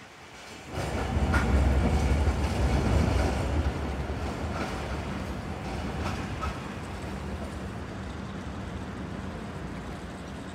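Streetcar rumbling along the track at a tram stop. A heavy low rumble comes in suddenly about a second in, is loudest over the next few seconds, then slowly eases off.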